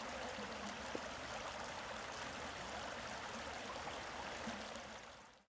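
Shallow woodland stream fed by melting snow, the water rushing steadily over its bed. The sound fades out just before the end.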